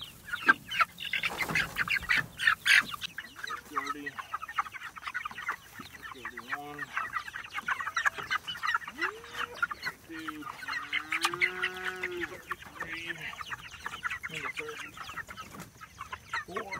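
A flock of young Freedom Ranger meat chickens peeping and cheeping continuously in a dense, rapid chatter, with a few lower, drawn-out calls mixed in. A few sharp knocks come in the first three seconds.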